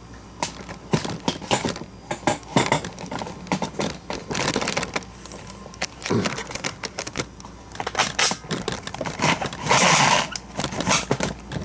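A bag of dry jasmine rice being handled and the rice portioned out: plastic crinkling and grains rattling, with many irregular small clicks and knocks and a longer, louder rush of noise near the end.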